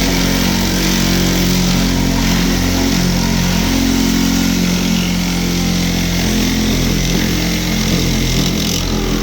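Milwaukee Sawzall reciprocating saw running steadily at full speed, cutting through the car body's sheet metal. It starts just before and cuts off suddenly just after.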